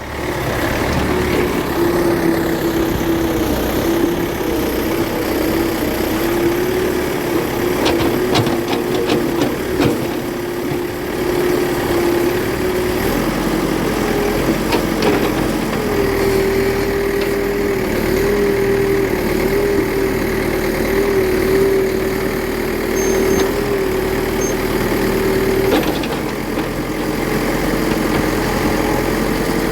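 Toy JCB backhoe loader working, with a steady engine-like hum that wavers a little in pitch. There are a few clicks about eight to ten seconds in.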